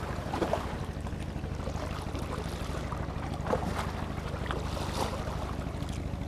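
Boat engine running with a steady low drone, with a few faint clicks about half a second, three and a half and five seconds in.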